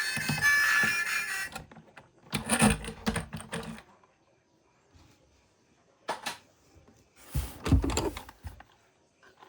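Music that stops about a second and a half in, followed by irregular clusters of clicks and knocks from objects being handled, with near-quiet gaps between them.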